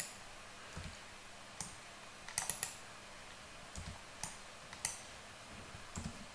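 Computer keyboard keys and mouse buttons clicking irregularly, single sharp clicks and a quick group of three about two and a half seconds in, with a couple of soft low knocks between them.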